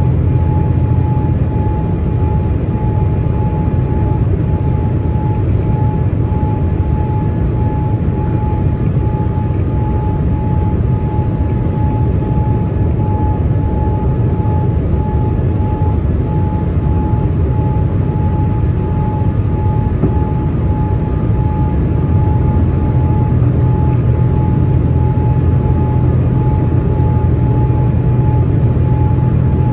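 Airliner cabin noise during the approach: a steady low rumble of engines and airflow with a thin, steady whine above it, growing slightly louder about two-thirds of the way through.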